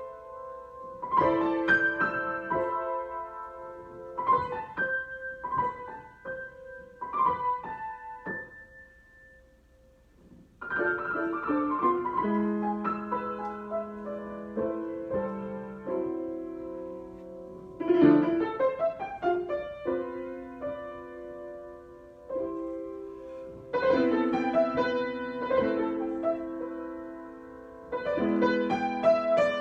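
Solo piano improvisation: chords and melody notes, slow and sustained. It thins to a single fading note about nine seconds in, then full chords resume.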